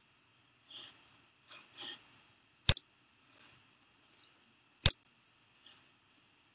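Computer mouse clicking: two sharp single clicks about two seconds apart, with a few softer short hissy noises in between.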